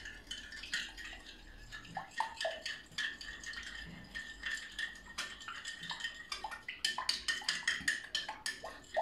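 A metal utensil stirring and beating a liquid mixture in a glass bowl, clinking against the glass in quick, uneven taps.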